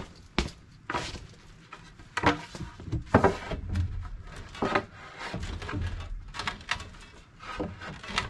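Irregular knocks and clunks of wooden boards being handled and set down, about a dozen separate hits spaced unevenly.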